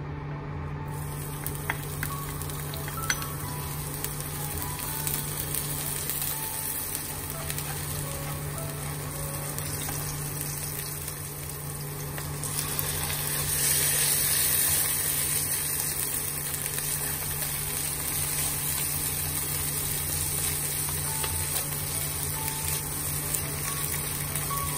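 Hot oil sizzling in a wok as chopped scallions and then minced pork fry. The sizzle grows louder about halfway through, when the pork goes in, and then settles to steady frying.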